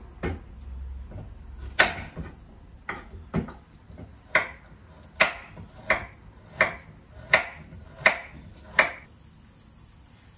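Kitchen knife chopping a carrot on a wooden cutting board: about ten sharp, evenly spaced knocks, roughly one every 0.7 seconds, stopping about nine seconds in.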